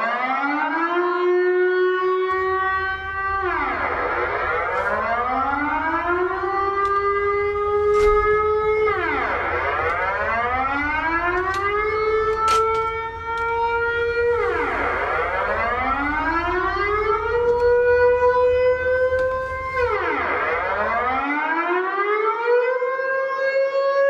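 Air-raid siren wailing over and over: each time its pitch climbs, holds, then falls away, about every five and a half seconds. A low rumble runs underneath for most of it.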